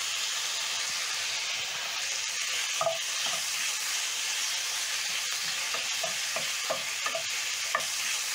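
Strips of ribeye steak sizzling steadily in hot oil in a frying pan. From about three seconds in, a wooden spatula scrapes and tosses the meat around the pan.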